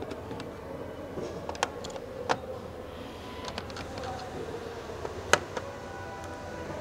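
Scattered sharp clicks and taps of an Acer Aspire 4738Z laptop being taken apart by hand, three of them louder than the rest, over a steady faint hum.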